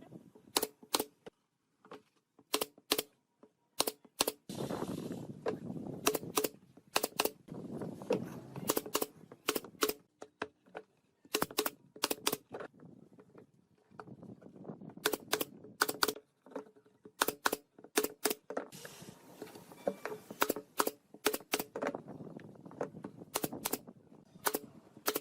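Sharp clicks and taps, often in quick pairs, between stretches of rough scraping or rubbing noise.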